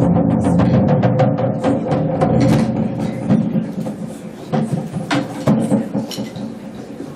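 A drum played live in fast, dense strikes that thin out to scattered hits and grow quieter, over a steady pitched tone.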